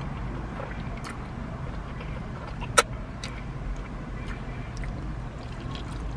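Noodles being eaten with chopsticks inside a car: faint mouth and chopstick clicks over the car's steady low cabin hum, with one sharp click a little under three seconds in.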